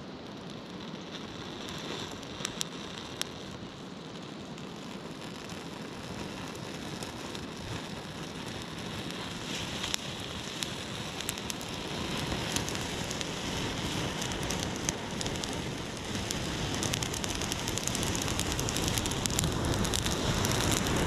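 Campfire of dry sticks and leaves catching alight: crackling with scattered sharp pops that come thicker and louder as the flames take hold, over a rushing noise that swells with it.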